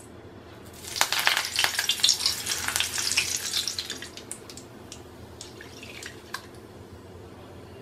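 Curry leaves dropped into hot oil in a steel strainer, sizzling and crackling. A loud burst of sputtering starts about a second in, then dies down after about three seconds to a faint sizzle with occasional pops.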